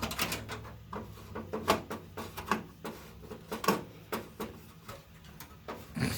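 Screwdriver driving a screw into a PC motherboard in a computer case: a run of irregular metallic clicks and scrapes.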